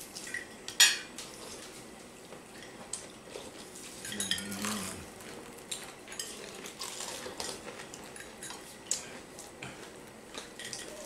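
Spoons and forks clinking and scraping on ceramic plates and bowls as people start eating a meal. There are scattered light clinks, with one sharp clink about a second in.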